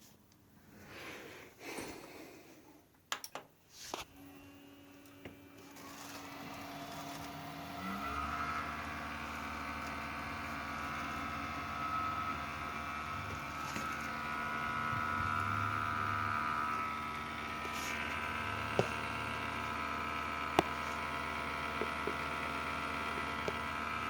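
A few clicks, then a steady electrical-mechanical hum with a prominent high-pitched whine that builds from about six seconds in and holds: the noise of a Corsair CS650M computer power supply, a three-day-old unit whose owner counts this noise as a fault.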